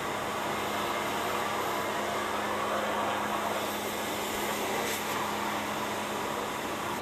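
Pressure washer running and spraying water onto a car: a steady hiss of spray over a steady motor hum, stopping abruptly at the end.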